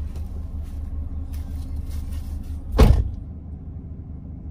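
Car engine idling, heard from inside the cabin as a steady low rumble, with the passenger door slamming shut once, loudly, just under three seconds in.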